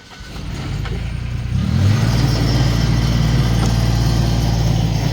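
Massey Ferguson GC2400 subcompact tractor's diesel engine running. It builds over the first second or so, picks up in speed near two seconds, then holds a steady hum.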